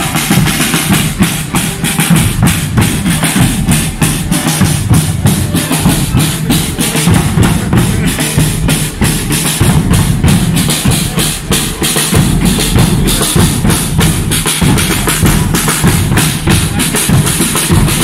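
A Portuguese bombos street drum group playing: large rope-tensioned bass drums (bombos) and snare drums (caixas) beaten with sticks in a fast, steady, unbroken beat.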